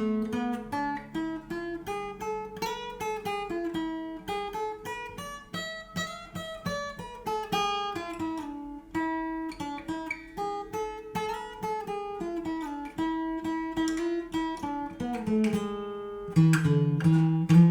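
Yamaha FG850 all-mahogany dreadnought acoustic guitar played solo, many notes picked in quick succession over changing chords. Louder, fuller low notes come in near the end.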